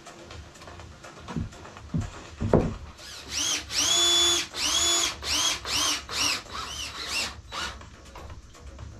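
Cordless drill driving screws through the wooden frame into the tabletop: about eight trigger pulls, each spinning up to a steady whine, the first few about half a second long and the later ones shorter and quicker, stopping just before the end. A few dull knocks of wood come before the drilling starts.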